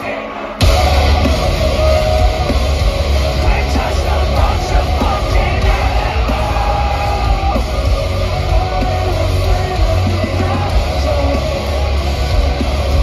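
Metalcore band playing live, heard from the crowd: after a quieter passage the full band comes in hard about half a second in, with heavy bass, distorted guitars, drums and shouted vocals.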